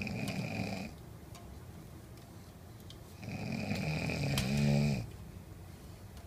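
A man snoring: two snores about three seconds apart, the second longer and louder, turning into a steady pitched buzz near its end.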